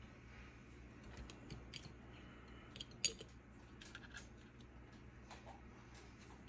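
Small scattered clicks and taps of a plastic scale-model chassis being handled and lifted off a paper template, with one sharper click about three seconds in, over a faint low room hum.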